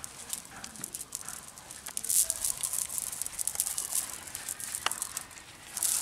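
Cast net being shaken out and emptied, wet pond weed and debris spilling from the mesh onto grass: irregular crackling rustles, with one sharp click about five seconds in.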